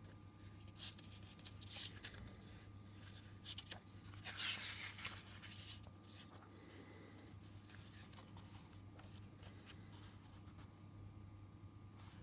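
Pages of a thick book being turned and fanned by hand: soft paper rustles and flicks, the loudest about four to five seconds in.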